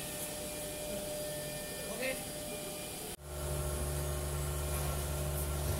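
Faint workshop background with distant voices, then an abrupt cut about three seconds in to a steady low hum of the vacuum membrane press running.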